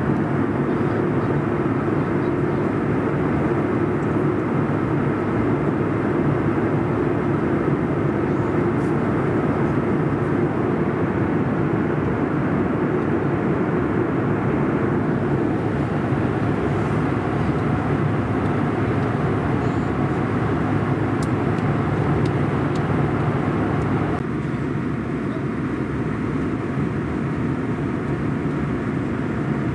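Steady cabin noise of a CRJ700 jet airliner in cruise: the rear-mounted turbofans and airflow, a constant low rush with no single events. It drops slightly and turns a little duller about three-quarters of the way through.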